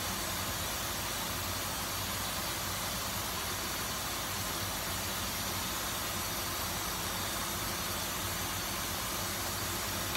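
Pan of chicken and vegetables cooking on an electric stove: a steady, even hiss with a low hum under it.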